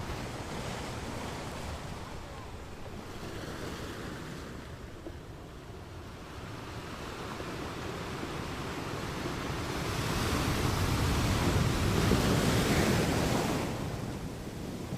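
Ocean waves washing onto a beach, a steady rush of surf that swells to its loudest about two-thirds of the way through as a wave comes in, then falls back near the end.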